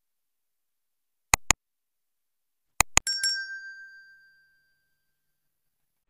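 Intro animation sound effect: two quick pops, then a short run of clicks ending in a bright bell-like chime that rings out and fades over about two seconds.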